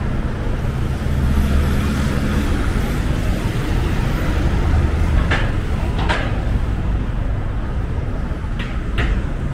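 City street traffic: a steady low rumble of vehicle engines, with one engine's hum standing out for the first couple of seconds. Four short sharp clacks come in two pairs in the second half.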